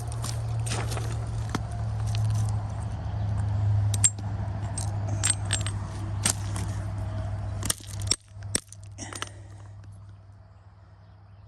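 Chert stones knocking together: several sharp, glassy clacks scattered over a few seconds, over a low steady rumble that stops about eight seconds in.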